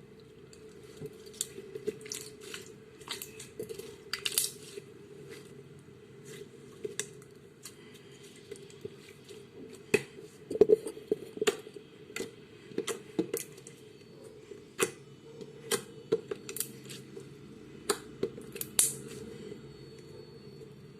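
Slime being squeezed and pressed by hand, giving irregular sharp clicks and pops, with a quick cluster of louder pops about halfway through.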